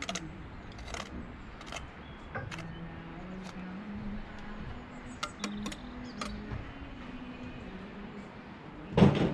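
Loose building stones knocking and clinking against each other and the scaffold boards as they are picked up and sorted, a scatter of sharp knocks with one loud knock near the end, over a low steady hum.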